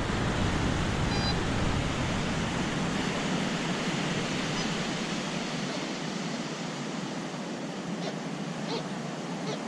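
Steady rushing noise of ocean surf on the beach, with a low rumble that drops away about two and a half seconds in.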